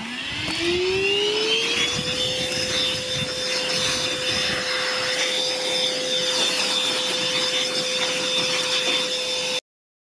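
A Parkside wet/dry vacuum's motor switched on, its whine rising in pitch for about two seconds and then running steadily, sucking air through a hose fitted to a mitre saw's dust port. It cuts off suddenly near the end.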